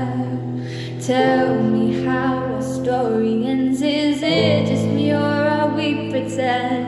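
Slow ballad playing: a woman sings a wavering melody over sustained chords, which change about a second in and again after about four seconds.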